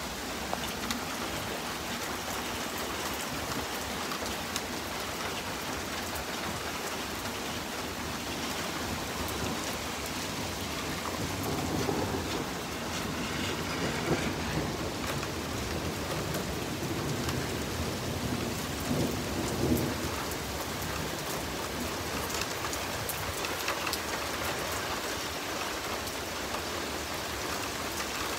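Steady rain falling on the street and lawns. Two low rumbles of thunder swell up in the middle of the clip, the second shorter than the first.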